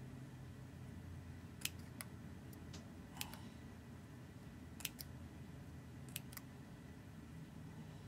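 Small craft scissors snipping partway into a narrow strip of parchment paper: a series of short, sharp snips, mostly in close pairs, about a second or so apart.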